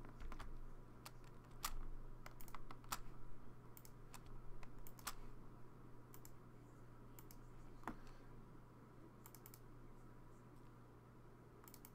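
Faint computer keyboard keystrokes and mouse clicks, short and irregular, coming in small clusters, over a steady low hum.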